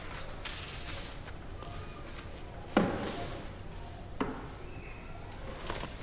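Two wooden knocks at a grand piano, a sharp one about three seconds in and a softer one about a second and a half later, with faint shuffling of someone settling at the instrument.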